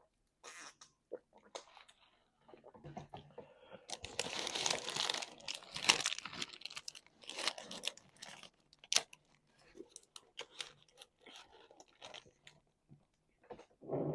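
A person chewing and crunching food. A dense stretch of louder crunching comes about four seconds in and lasts two to three seconds, with scattered shorter crunches before and after.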